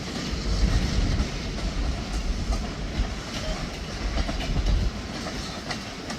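Freight train's cars rolling past, a steady rumble with the wheels clicking over the rail joints.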